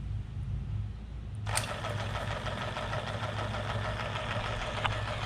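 Homemade belt-driven vacuum pump with a small electric motor, used for evacuating an air-conditioning system: a low hum, then about a second and a half in a louder, fast, even mechanical clatter starts and runs steadily.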